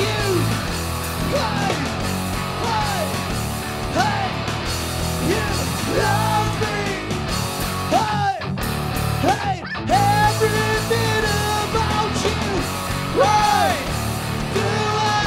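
A live rock band playing: a man singing over electric guitar, electric bass and an electronic drum kit.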